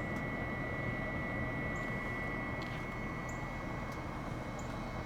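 Fans of a BioLite CampStove and CampStove 2 running on high, a steady whir with a thin steady whine, as the wood pellets burn; a few faint high ticks.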